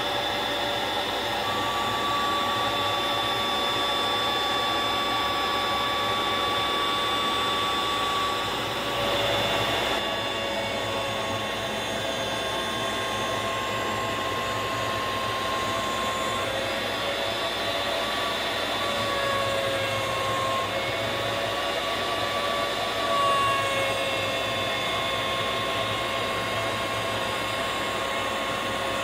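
Shop vacuum running steadily together with a CNC-mounted router cutting wood, its motor making a steady high whine whose pitch wavers a little under the changing load of the cut.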